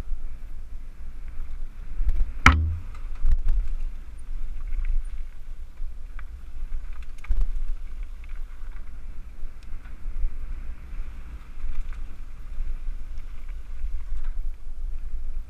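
Mountain bike running fast down a gravel forest trail, heard from a camera riding along: a steady low rumble of tyres and wind on the microphone with scattered rattles and clicks. One sharp clunk about two and a half seconds in is the loudest sound.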